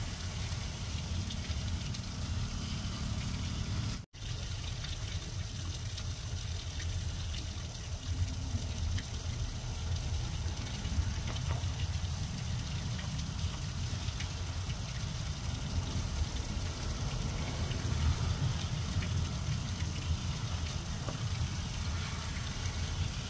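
Steady rain falling on grass and bare ground: a continuous hiss with a strong low rumble underneath. The sound cuts out for a split second about four seconds in.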